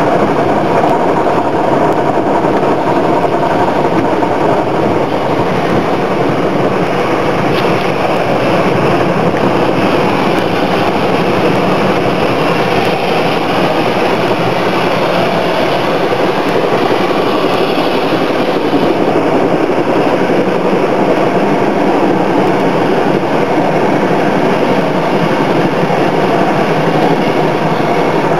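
Automatic car wash running: water spraying and beating on the car's windscreen and body, heard from inside the car as a loud, steady rushing noise.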